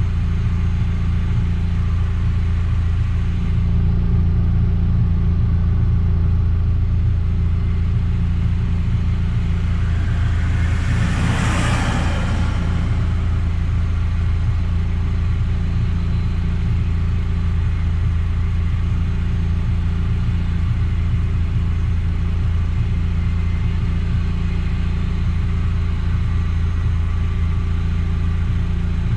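Eunos Roadster's four-cylinder engine running at a steady speed with a constant low hum. About eleven seconds in, a rushing whoosh swells and fades, like a vehicle passing.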